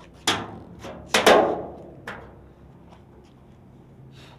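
Knuckles rapping on the steel body panel of a 1966 Ford F-100 pickup: four sharp knocks that ring briefly, two in quick succession about a second in, showing the panel is solid steel with no body filler.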